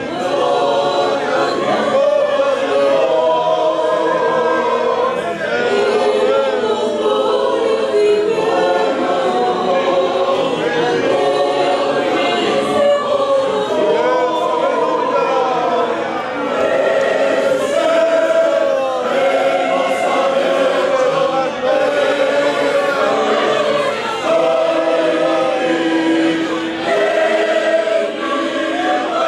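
Mixed choir of men's and women's voices singing a Spanish-language hymn, several held notes sounding together and moving from chord to chord without a break.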